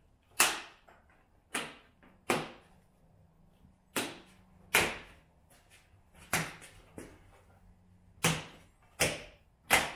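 Plastic Jeep JL fender being knocked home onto the body, its clips seating: about ten sharp smacks at uneven intervals, the loudest near the start.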